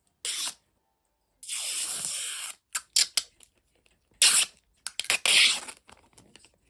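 Packaging being handled and opened: short bursts of tearing and rustling, with a longer rip about a second and a half in.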